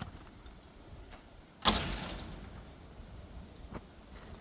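Orchard door pulled shut by a chain and trampoline-spring closer, banging closed once about a second and a half in, the sound fading over about a second after it.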